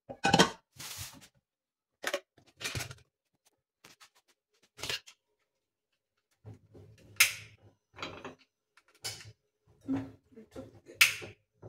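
A utility lighter clicking at a gas hob burner, with knocks from handling: a dozen or so short, sharp sounds with gaps between them, the loudest about 7 and 11 seconds in.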